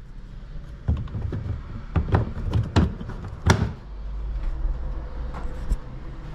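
A series of sharp knocks and clunks from inside a Jeep Renegade's cabin, several in the first half and one more near the end, with a low rumble under them partway through.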